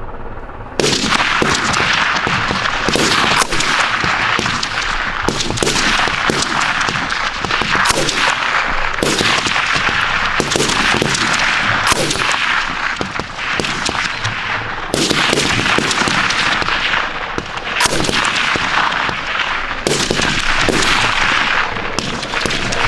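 6.8mm M250 machine gun firing on full automatic, starting about a second in, in long bursts that run almost without pause.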